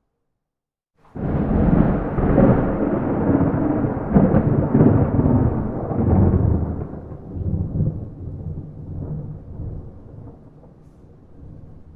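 A peal of thunder with no rain. It breaks in suddenly about a second in, rolls loudly with several swells for some seconds, then tails off into a fading rumble.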